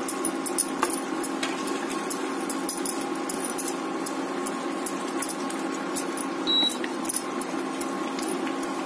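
Chicken curry simmering in a nonstick pan while a wooden spatula stirs it, giving small irregular clicks and taps over a steady electrical hum from the induction cooktop.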